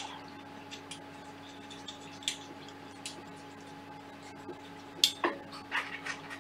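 Small metallic clicks and clinks of screws being started by hand into a 3D-printer kit's aluminium frame plate and extrusion, sparse at first, with a sharp click about five seconds in and a handful more near the end. A faint steady hum runs underneath.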